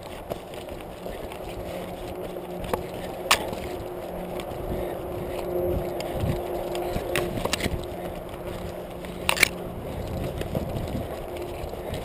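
A runner moving fast through forest undergrowth, heard through a chest-mounted GoPro housing: continuous muffled rubbing and brushing, with a few sharp knocks. The loudest knocks come about three and nine seconds in.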